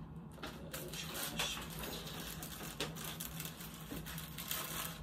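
Paper wrapper of a sterile glove packet rustling and crinkling in irregular crackles as it is handled and unfolded.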